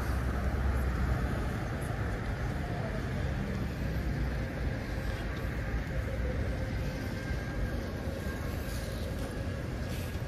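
Steady rumble of passing vehicles, heaviest at the start and easing after about two seconds, with a faint whine holding through the middle.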